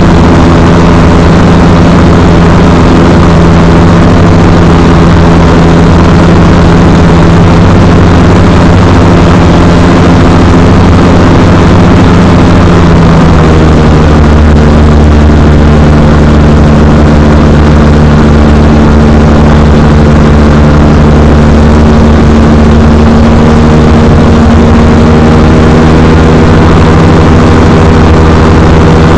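X-Air microlight's engine and propeller running loud and steady, its note shifting about halfway through.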